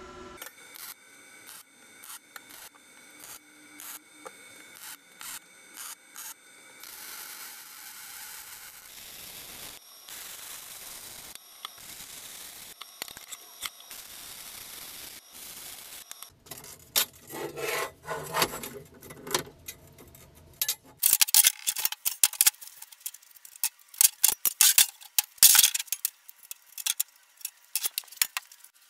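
Steel fabrication sounds: a Lincoln Electric 210MP MIG welder's arc crackling steadily through the middle stretch, then a rapid run of loud, sharp metallic clicks and knocks near the end.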